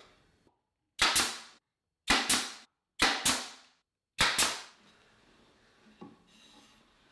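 Nail gun firing four times, about once a second, driving 1¼-inch nails into a wooden drawer slide; each shot is a sharp double crack with a short tail.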